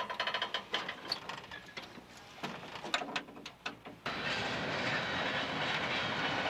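Cub Cadet RT65 rear-tine tiller at work: a fast mechanical clatter and rattle, then scattered clacks, giving way about four seconds in to a steady rushing noise that cuts off suddenly.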